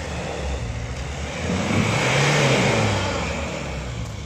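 Jeep Cherokee XJ engine pulling the 4x4 up a muddy, snowy track: it revs up and grows louder about one and a half seconds in, then eases off near the end.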